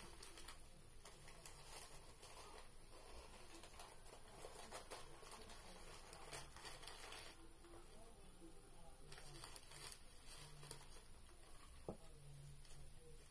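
Faint crinkling and rustling of individually wrapped sanitary pads being handled and sorted, with a few light clicks.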